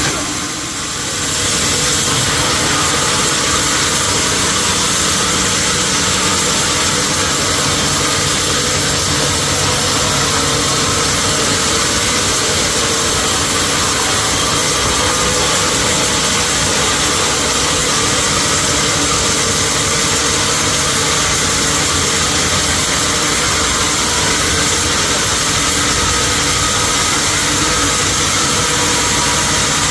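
Sawmill machinery running steadily, a loud, even mechanical hum with a dense hiss, dipping briefly about a second in.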